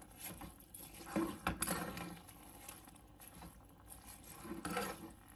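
Steel spoon stirring soaked basmati rice and masala in an aluminium pressure cooker: soft scraping of wet rice, with a few light clinks of the spoon against the pot about a second and a half in and near the end.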